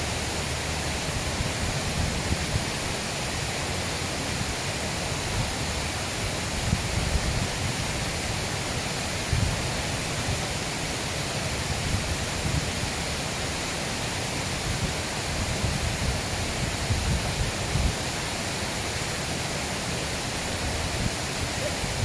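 Steady rush of stream water running over a low concrete ford and rocks, with irregular low rumbles of wind on the microphone.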